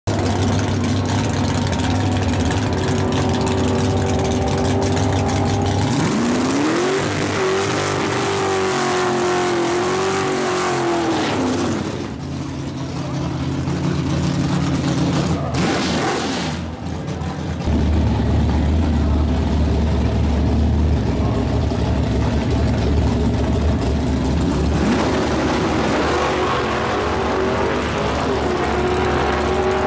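Yenko Nova drag car's V8 engine, revved up and held at high revs through a smoky burnout about 6 to 11 seconds in. It drops back to a heavy, lumpy rumble while staging, then launches at full throttle near the end, the engine note climbing and holding high as the car pulls away down the strip.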